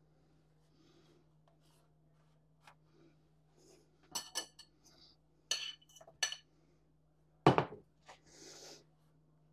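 A metal fork and bowl clinking in a few quick taps, then one louder knock about three-quarters of the way through, followed by a short soft brushing.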